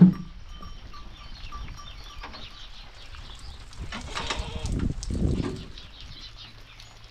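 Farmyard livestock sounds, goats among them, opening with a sharp knock and with a louder stretch of noise about four to five and a half seconds in.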